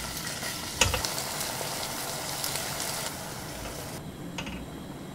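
Chicken drumettes and red curry paste sizzling in hot oil in a pot, stirred with a wooden spoon that knocks against the pot now and then, the sharpest knock about a second in. About four seconds in the sizzling stops and the sound becomes much quieter.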